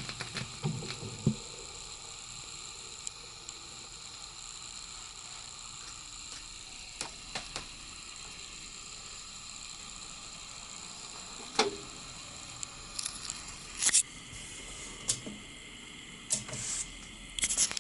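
Technics SL-BD20 turntable mechanism and handling: scattered sharp mechanical clicks and knocks over a steady low hiss, with a few clicks near the start, a single loud click past the middle and quick clusters of clicks near the end.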